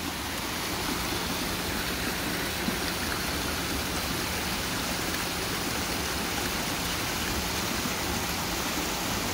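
Water running steadily into a koi pond: an even, unbroken rush of splashing water, with a faint steady hum underneath.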